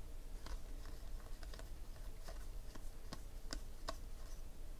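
Trading cards being thumbed through and slid from hand to hand, giving faint, irregular clicks of card edges.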